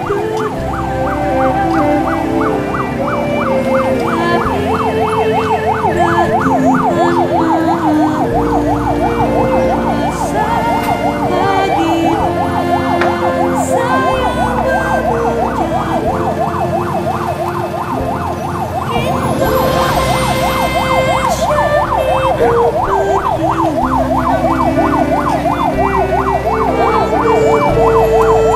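Ambulance siren sounding a rapid up-and-down warble that keeps going without a break.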